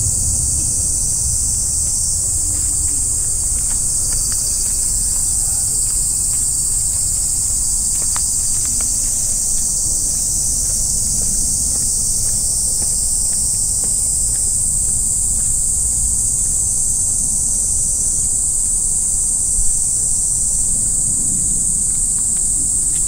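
Steady high-pitched insect chorus that runs without a break, over a low rumble of wind on the microphone. A single short click comes near the end.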